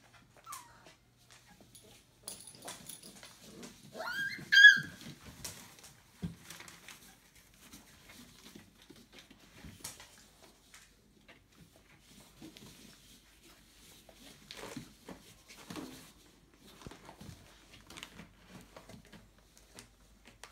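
27-day-old Entlebucher puppies squeaking and scuffling, with one loud high-pitched puppy yelp about four seconds in and a few faint squeaks and small clicks around it.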